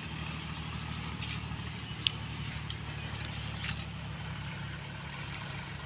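A vehicle engine running steadily as a low hum, with a few short sharp clicks, the sharpest about two seconds in.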